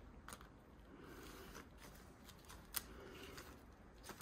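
Near silence with faint rustling and a few soft clicks as a tool and hand work wax on a paper strip; the clearest click comes nearly three seconds in.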